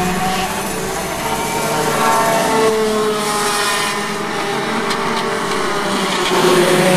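Two-stroke racing kart engine running, its pitch sliding up and down as the kart speeds up and slows.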